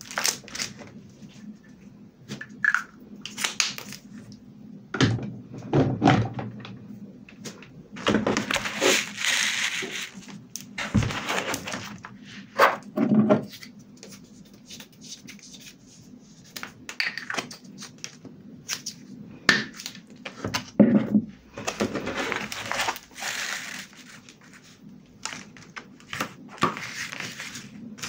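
Hands handling journal pages covered in cellophane and clear plastic film: crinkling and rustling of the film and paper in several bursts, with light taps and clicks in between.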